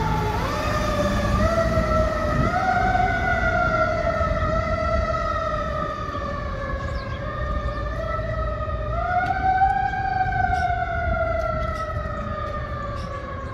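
Fire engine siren on a 2018 Spartan ERV MetroStar pumper wailing as it heads away down the street. Its pitch climbs quickly several times and slides slowly back down each time, over the rumble of traffic, and it fades toward the end.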